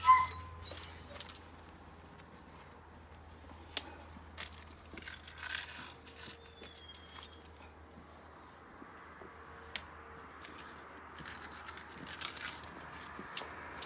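Eggs being cracked against the rims of steel pots and dropped in with their shells, giving scattered sharp knocks, the loudest right at the start, with short rustling noises between them.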